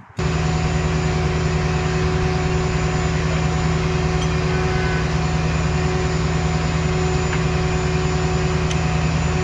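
Tow truck's engine running steadily at idle, heard close up from its bed: a loud, even hum with a few fixed tones that sets in abruptly right at the start.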